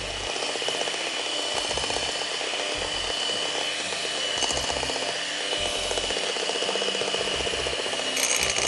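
Electric hand mixer running steadily, its beaters whisking eggs, brown sugar and oil in a glass bowl. It grows a little louder near the end.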